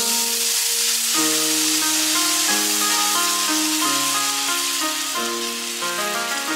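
Water poured into a hot frying pan of gyoza dumplings, sizzling and hissing as it hits the hot pan and turns to steam. Background music with a melody of separate notes plays throughout.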